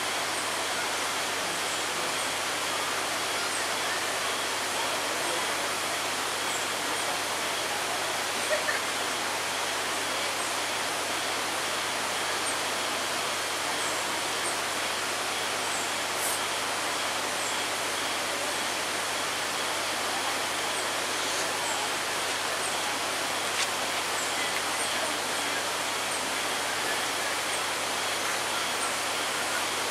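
Steady, even rushing noise, with faint high chirps scattered throughout and a couple of brief clicks.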